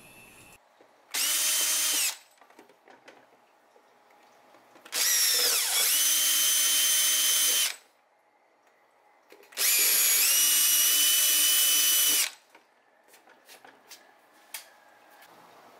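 Handheld power drill whining in three runs as it bores small holes through the plastic wall of an ammo box: a short run about a second in, then two longer runs of two to three seconds each. Its pitch sags as the bit bites at the start of the second run, and there are small clicks and taps between runs.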